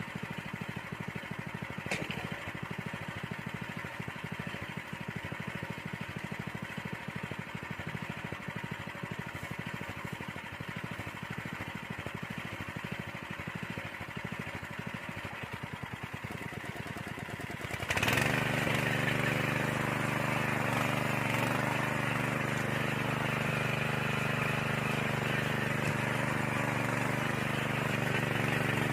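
Engine of a walk-behind soil-tilling machine running steadily with a fast, even beat. About two-thirds of the way through it revs up abruptly and then keeps running louder and higher.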